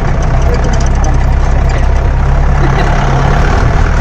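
A jeep's engine idling steadily, low and loud.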